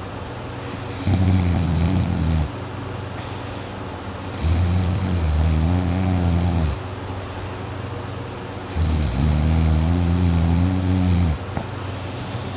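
A man snoring loudly in his sleep: three long, deep snores, one every three to four seconds, each lasting about two seconds, with a steady low hum in between.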